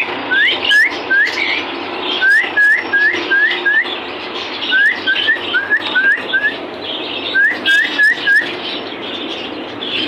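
Rose-ringed parakeet giving short, rising whistled calls in quick runs of four to six, over a steady background noise.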